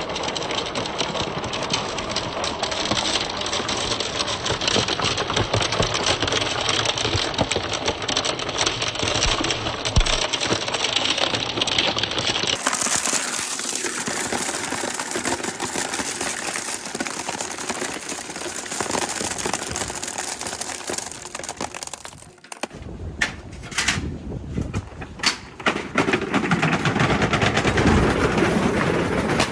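Many balls rolling and clacking down a wooden marble-run track in a dense, rapid clatter. About two-thirds of the way in it thins to a few separate knocks, then a fresh rush of balls clatters on.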